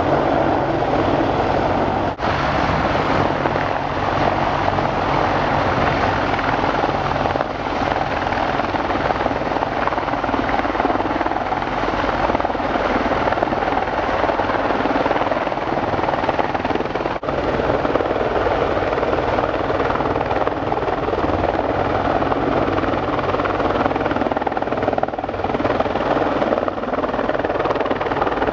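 Apache attack helicopter flying low, its rotors and twin turboshaft engines running in a steady, loud drone. The sound dips briefly twice, about two seconds in and again past the middle.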